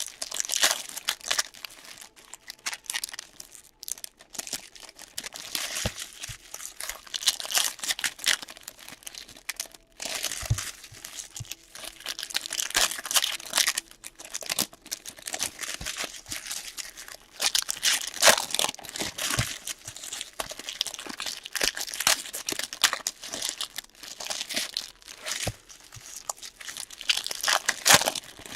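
Foil trading card pack wrappers crinkling and tearing as packs are opened and handled, in irregular bursts of crackle.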